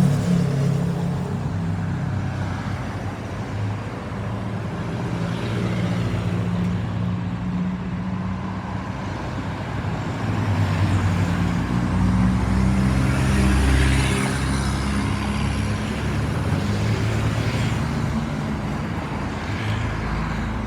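Road traffic: vehicle engines running with tyre noise, swelling as a vehicle passes close about two thirds of the way through. No siren sounds.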